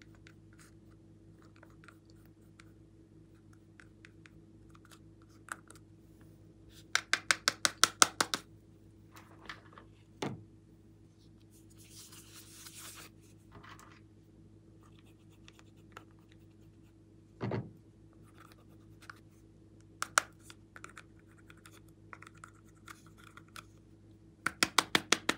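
Eyeshadow being scraped out of a plastic palette with a small tool and knocked loose: two runs of quick clicks, each about a second long, with scattered scratches, a short rustle and a few soft knocks between.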